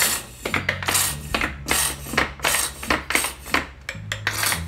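Plastic squeeze bottle of white acrylic paint sputtering as it is squeezed, spitting air and paint in short hissing spurts about three times a second: the bottle is running nearly empty. Background music with a low bass line runs underneath.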